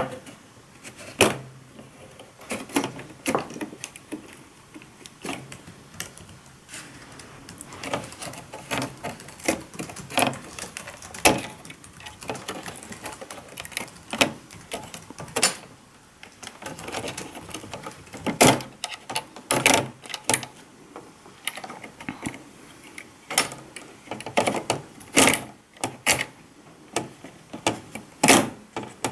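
Small white plastic wire connectors being worked loose from an LCD TV's inverter board by hand: irregular sharp plastic clicks and taps, some in quick clusters.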